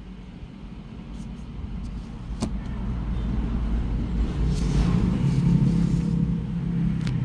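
A motor vehicle engine running nearby, its low rumble growing louder over a few seconds, with a couple of sharp clicks.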